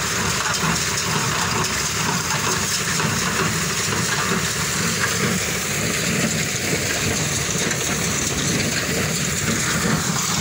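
Tractor-drawn square baler running steadily while it picks up and bales dry sugarcane trash: continuous engine and machinery noise with a rushing, rain-like hiss.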